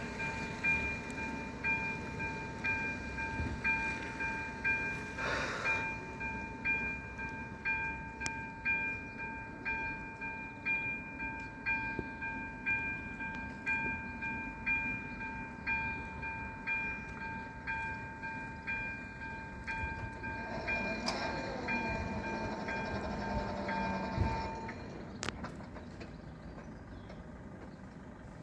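Railway level crossing's electronic warning bell ringing in a steady repeating ding, about one and a half strikes a second, then stopping about 24 seconds in.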